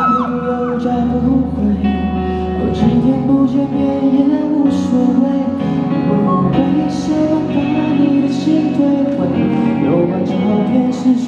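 Live performance of a pop ballad with guitar, played loud over the hall's sound system.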